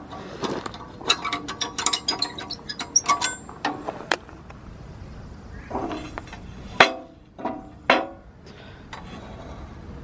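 Steel hitch pin and spring clip clinking and rattling against the rusty steel hitch plates of a rear grader blade, a quick run of small metallic clicks, then a few louder clanks that ring briefly in the second half.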